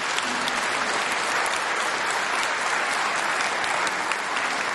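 Concert audience applauding steadily at the end of a choral performance.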